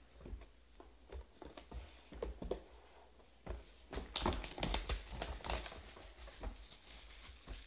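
Hands handling and opening a cardboard trading-card hobby box: scattered light taps and knocks, then a denser spell of crinkling and tearing from about four seconds in, easing off near six seconds.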